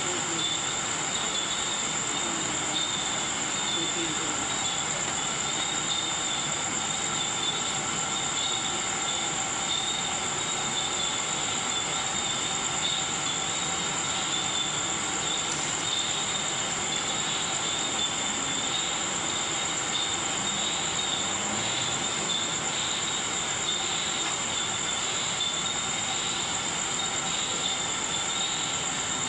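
Steady, high-pitched chorus of night insects, several unchanging tones over a hiss, with faint distant voices underneath.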